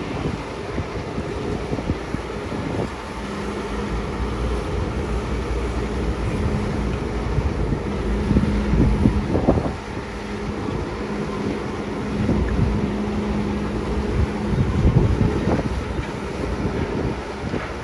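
Komatsu PC200 hydraulic excavator's diesel engine and hydraulics working steadily as it digs, with a steady hum holding through the middle and a few short knocks.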